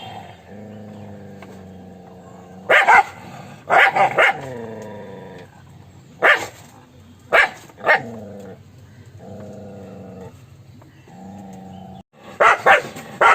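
Dog barking in short single and double barks a second or more apart, with a low drawn-out growl between the barks; a quick run of barks comes near the end.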